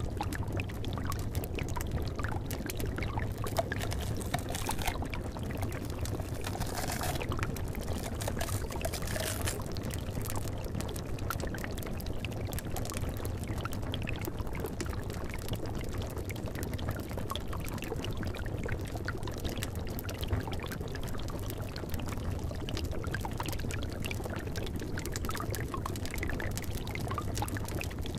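Cauldron of liquid bubbling steadily over a fire, with many small pops and crackles all through and a few brief brighter hisses between about four and ten seconds in.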